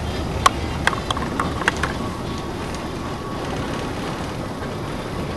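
A train running: a steady low rumble, with several sharp metallic clicks in the first two seconds and a faint thin whine just after them.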